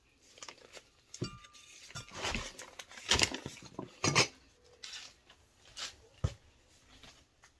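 Scattered knocks, clinks and clatter of kitchen dishes and utensils being handled, busiest a little after the middle, with a last sharp knock near the end.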